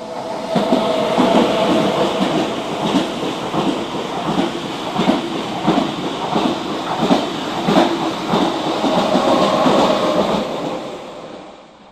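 Renfe train passing close by, its wheels clacking in a steady rhythm over the rail joints over a steady whine. It fades out near the end.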